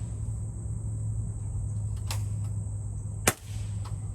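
Sharp crack of a PCP air pistol firing about three seconds in, with a fainter air-gun shot about two seconds in, over a steady low hum and a thin steady high tone.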